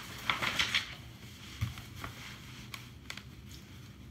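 Paper book page being turned: a quick crackling rustle in the first second, then a few faint paper clicks as hands settle on the page.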